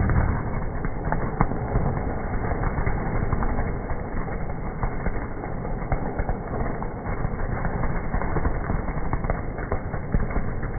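Fireworks crackling: a dense, continuous stream of small rapid pops with no single big bang standing out.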